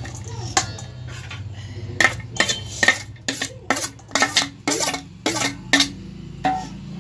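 Metal spoon clinking and scraping against stainless steel bowls as chopped onions, potatoes and green chillies are tipped from one bowl into another: a quick run of sharp clinks, about three a second, from about two seconds in to near the end.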